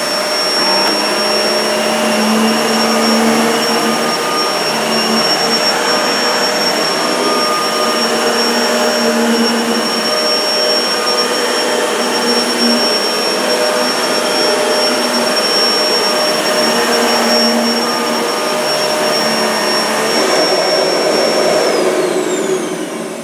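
Hoover The One Pet bagless upright vacuum cleaner running on carpet, its suction motor giving a steady high whine over the rush of air and the beater brush roll as it is pushed back and forth. Near the end it is switched off and the whine falls away as the motor spins down.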